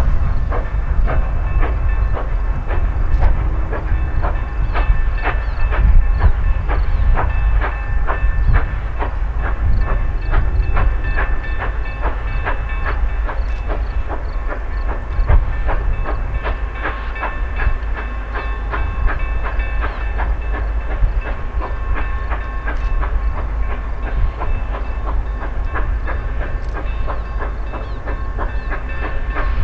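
Railway train running on track: a steady low rumble with rapid clicking of wheels over the rails and some steady tones above it.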